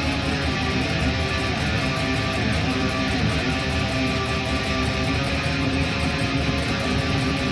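Guitar being played without a break at an even level, as in a practice session.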